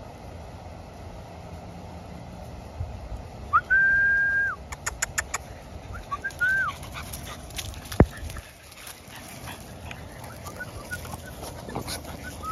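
French bulldog puppies whining and whimpering: a held whine about three and a half seconds in, then a quick run of sharp clicks and short rising-and-falling whines, with a single sharp knock about eight seconds in.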